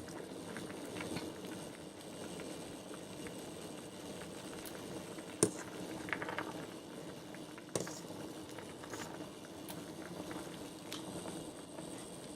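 A pot of noodles boiling steadily on the stove, bubbling the whole time, with a few sharp clicks or knocks, the loudest about five and a half seconds in.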